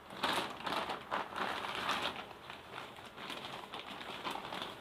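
Plastic polybag crinkling and rustling as it is handled and opened, with irregular small crackles throughout.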